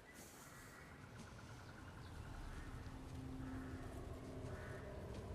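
Faint movie soundtrack ambience, a low rumble that slowly grows louder, with a steady low hum coming in about halfway through.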